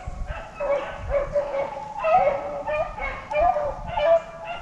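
A pack of rabbit hounds baying on a rabbit's trail, in a continuous chorus of overlapping cries as they run the rabbit.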